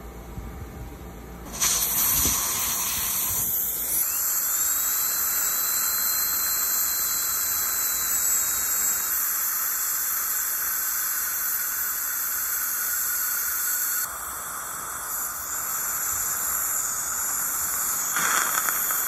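High-speed dental handpiece (drill) running on a molar, a steady high-pitched whine with hissing air and water spray, used to shape the endocrown restoration. It starts abruptly about two seconds in, drops a little in level partway through and swells again near the end.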